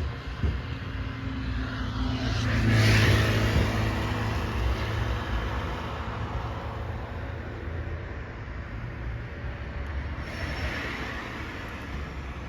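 Road vehicles driving past close by. One swells to a peak about three seconds in and then fades away slowly, and a second, lighter rush passes around ten seconds in.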